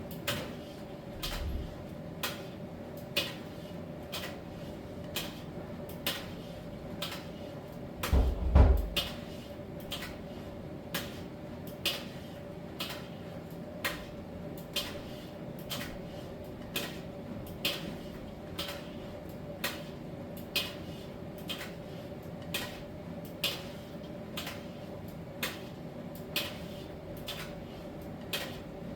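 Miele T1 heat-pump tumble dryer running in its drying phase: a steady machine hum with a light click roughly every 0.7 s as the tumbling load knocks inside the drum. A heavier thump comes about eight seconds in, with a smaller one near the start.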